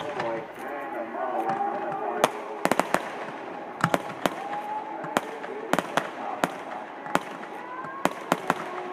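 Aerial fireworks going off in sharp, irregular reports, some in quick clusters of three or four, with people's voices talking beneath them.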